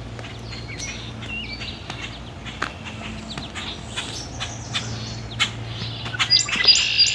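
Several wild songbirds chirping and calling to each other in short, overlapping phrases. The calls grow busier and louder about six seconds in. A low steady hum runs underneath.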